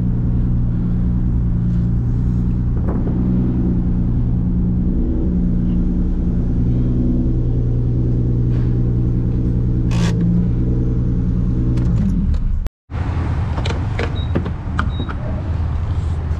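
Straight-piped Toyota Supra 2JZ inline-six with a big turbo, idling and rolling at low revs with a steady, deep drone. About three-quarters of the way through, the sound cuts off abruptly. Handling noises at a fuel pump follow, with two short high beeps.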